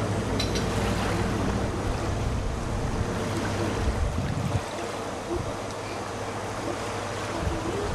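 Wind rumbling on the microphone over a steady wash of small waves at the shore; the wind rumble eases about halfway through.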